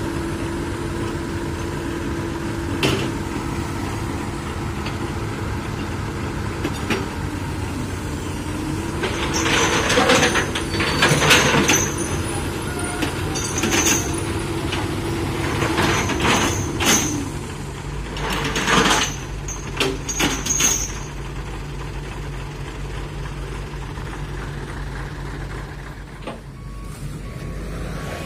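Heavy diesel truck engine running steadily. In the middle come several loud bursts of hissing and clanking, typical of air brakes releasing. A reversing alarm starts beeping near the end.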